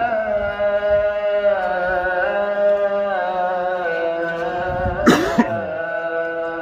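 A man's voice chanting in long, held melismatic notes with a wavering pitch, in the style of a muezzin. About five seconds in, a single cough cuts through.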